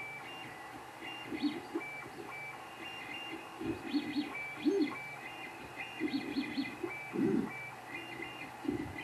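Creality 3D printer running a print: its stepper motors make short, changing pitched notes as the print head darts about, over a steady fan hum.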